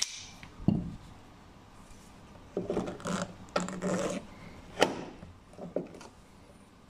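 Knocks, scrapes and a rattle as a tailgate gas strut is handled and its end socket is pressed onto the ball stud, with one sharp click about two-thirds of the way through and a few smaller clicks after it.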